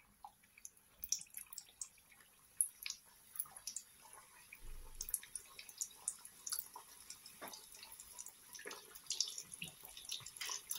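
Vegetable pitha deep-frying in a pan of hot oil: a crackling sizzle of sharp pops, sparse at first and growing busier and more continuous after a few seconds as the frying gets going.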